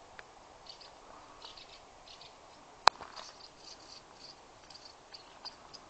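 Faint high-pitched chirps repeating irregularly, with one sharp click about three seconds in.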